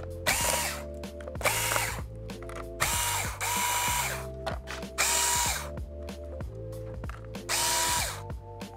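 Electric screwdriver whirring in five short bursts, each spinning up and winding down, as it backs out the laptop's bottom cover screws. Background music plays underneath.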